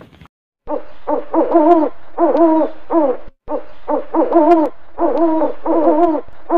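Owl hooting: a quick run of short, arched hoots, about three a second, with a brief break about three seconds in.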